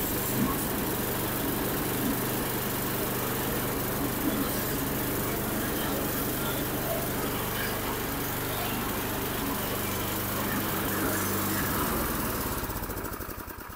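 8 hp Tecumseh single-cylinder engine on a snowblower running steadily, now running good again after the repair. About twelve seconds in it is shut off and winds down, its pulses slowing to a stop.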